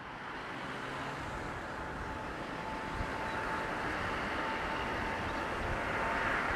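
Boeing 777F freighter's two GE90 turbofans at takeoff thrust during the takeoff roll: steady jet engine noise with a high whine, growing gradually louder as the aircraft accelerates toward the listener.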